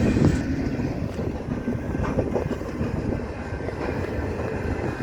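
Steel-coil freight train rumbling over the rails as its last wagons pass and pull away, the sound slowly fading.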